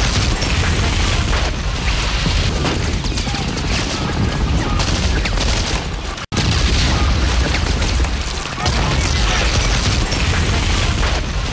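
Battle sounds: heavy explosions booming and bursts of gunfire over a dense roar. The sound cuts out for an instant a little past halfway.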